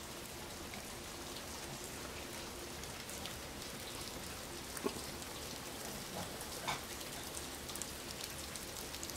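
Steady rain falling outside, a soft even hiss with a few faint drop ticks standing out, one about five seconds in and another a little before seven seconds.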